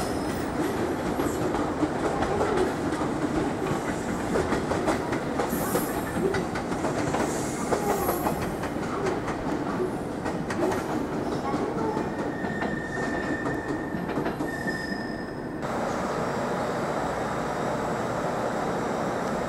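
Electric trains moving through station tracks, wheels clicking over rail joints and points, with a few brief high wheel squeals. Near the end it cuts to a steadier hum as a JR Kyushu 787-series limited express runs slowly along a platform.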